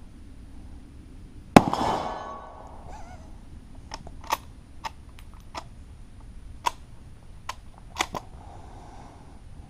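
A Mosin-Nagant bolt-action rifle fires one shot about a second and a half in, a sharp blast with a brief echoing tail. It is followed by a scatter of much smaller sharp clicks and clacks.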